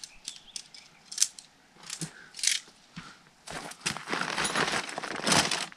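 Tent poles clicking and tapping as they are folded, with one sharp knock about a second in. About three and a half seconds in, a loud, dense rustling of the tent fabric and its bag begins as they are stuffed away.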